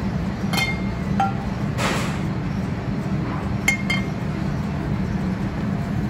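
Stainless steel mixing bowl clinking against metal about four times, each strike ringing briefly, with a short rush of noise about two seconds in. A steady low hum of the kitchen runs underneath.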